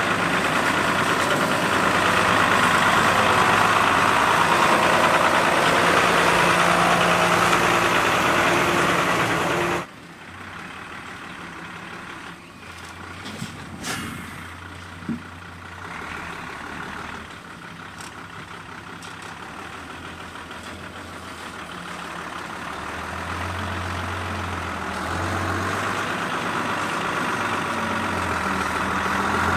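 Mitsubishi cargo truck's diesel engine running as it drives on a dirt road, loud at first with tyre and engine noise. About ten seconds in it cuts to a much quieter, distant engine hum that grows steadily louder as the truck approaches.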